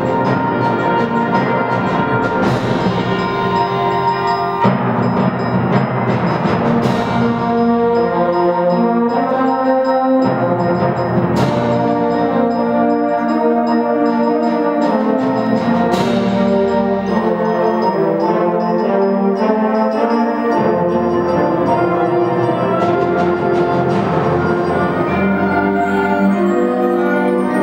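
Youth symphonic band playing: sustained brass and woodwind chords, punctuated by percussion strikes about every four and a half seconds through the first two-thirds.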